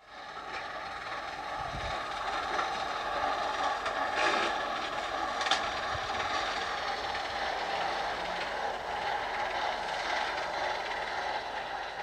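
Farm tractor running steadily as it works a mown hay field, with a couple of light knocks about four and five and a half seconds in.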